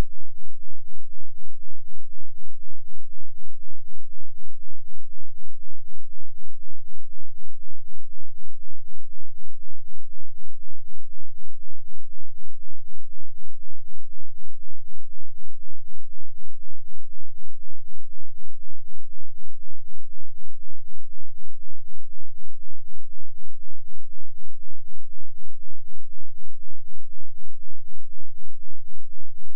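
A 2 Hz sine-wave bass test tone: a very low, steady throb whose loudness swells and dips evenly about four times a second.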